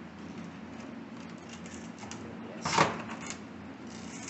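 Light handling clatter, then one sharp crunch a little under three seconds in as a piece of motherboard circuit board is cut off.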